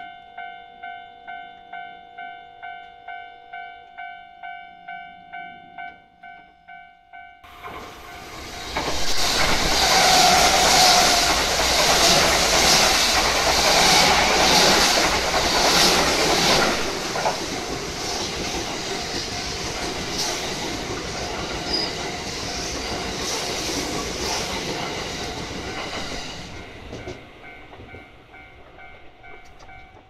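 Japanese level-crossing warning bell ringing in a steady electronic clang about twice a second. About seven seconds in, a Kintetsu Nara Line train begins passing close by: a loud rush of wheels on rail for some twenty seconds. The bell keeps ringing under it and is heard on its own again near the end as the train fades.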